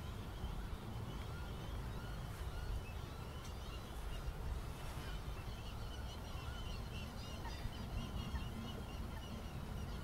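Outdoor ambience: a steady low rumble, with faint high chirping calls scattered throughout.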